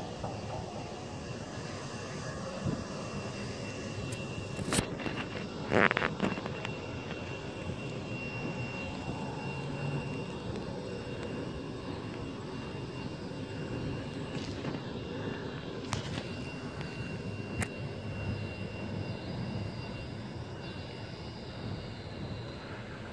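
Regional jet's rear-mounted turbofan engines running at taxi power, a steady whine over a low rush, as the plane rolls past. A few short sharp knocks, the loudest about six seconds in.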